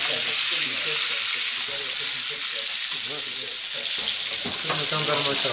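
Duck breasts sizzling steadily in hot fat in a frying pan, while a metal spoon bastes the fat over their tops.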